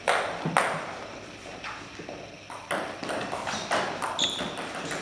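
Table tennis rally: the ball clicking sharply off bats and table again and again at an uneven pace, with a brief high squeak about four seconds in.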